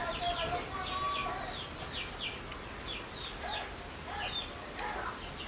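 Chickens peeping and clucking: a steady run of short, high, falling peeps, about two to three a second, with a few lower clucks now and then.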